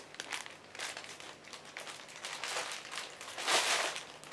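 Clear plastic bag crinkling in irregular bursts as a bundle of satin hair bows inside it is handled, loudest a little after three and a half seconds in.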